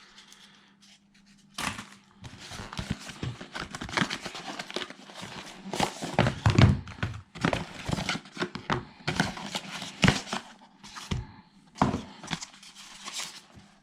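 Cardboard product box and packaging being opened and unpacked by hand: irregular rustling, tearing and crinkling with short thunks and knocks. It starts suddenly about a second and a half in.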